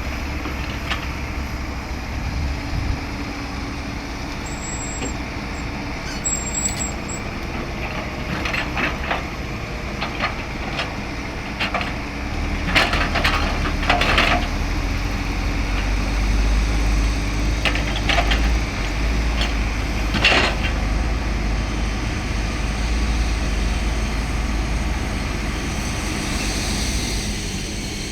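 Heavy diesel earthmoving machinery, an excavator working with tipper trucks, running steadily with scattered knocks and clanks. The engine drone grows louder about twelve seconds in, and the clanks are strongest around the middle.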